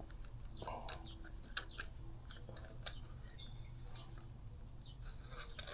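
Faint scattered clicks and light metal scrapes as a loosened spark plug is fished out of the plug well of a BMW R1100GS oilhead boxer with a wrench, over a steady low hum.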